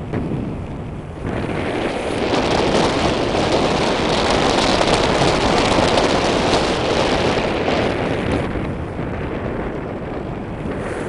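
Rushing air buffeting the camera microphone in tandem paragliding flight: a dense, steady rush that swells sharply about a second in, is loudest in the middle and eases off near the end.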